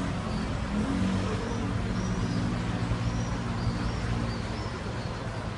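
Steady street traffic noise, a low hum of passing cars, with faint high chirping from time to time over it.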